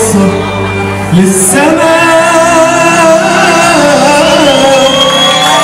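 Male singer singing an Arabic song live into a microphone, with band accompaniment including electronic keyboard.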